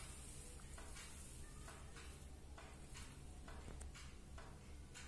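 Near silence: a steady low hum with faint, irregular clicks scattered through it.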